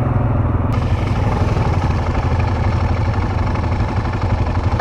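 ATV engine running steadily while under way on a dirt trail. A brighter hiss joins about a second in.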